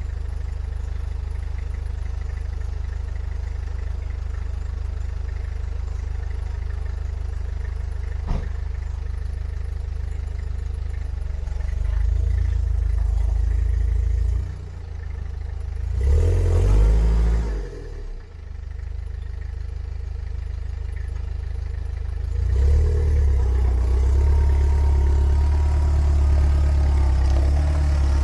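Toyota Hiace engine running at a steady idle while it warms up after a hard cold start. About halfway through it swells briefly and falls back, and it is louder over the last several seconds.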